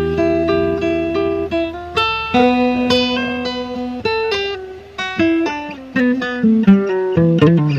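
Background music: a plucked guitar playing a melody of single notes, one after another.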